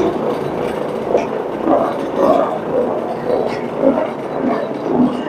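Carpet-cleaning equipment running with a steady, loud mechanical drone, with some uneven mid-pitched sounds over it in the second half.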